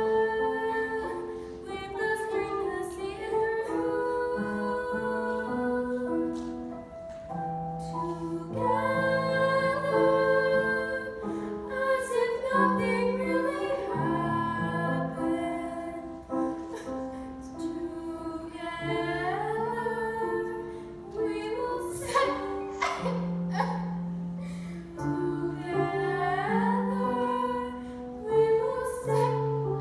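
Music: a show tune sung with instrumental accompaniment, long held notes with vibrato over a moving bass line.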